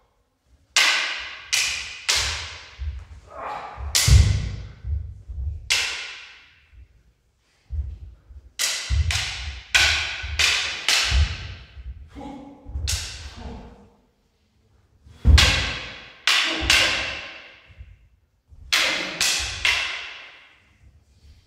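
Wooden bokken and longsword clashing in rapid exchanges of two to five sharp clacks, each ringing briefly, with pauses of a second or two between exchanges. Low thuds of stamping footwork on a wooden floor run underneath.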